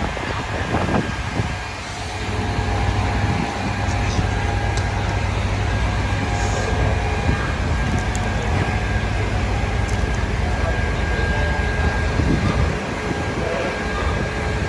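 Steady low rumble of an idling vehicle engine over continuous city street noise.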